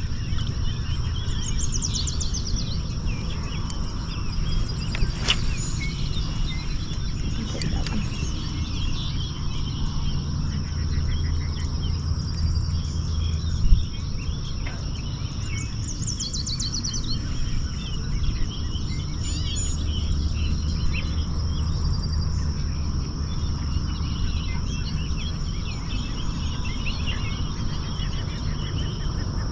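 Outdoor ambience with birds trilling twice, over a steady high thin drone and a low rumble, with two sharp clicks.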